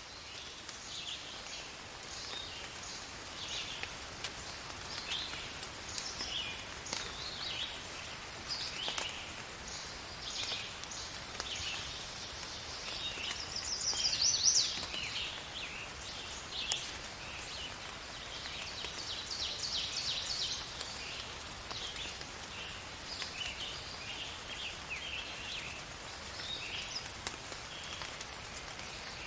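Steady light rain with many small animal calls over it: chirps and fast trills throughout, loudest in a burst of rapid trilling about halfway through.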